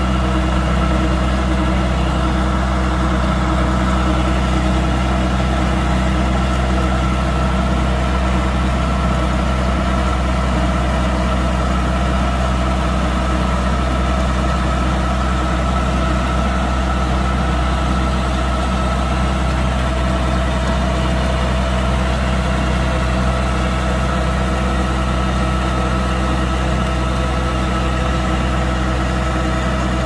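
Kubota DC-105X combine harvester's diesel engine running steadily at a constant speed.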